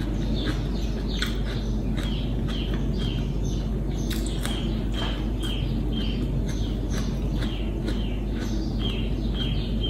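A bird chirping over and over, short falling high notes about two a second, alongside crisp crunching and chewing of raw vegetables.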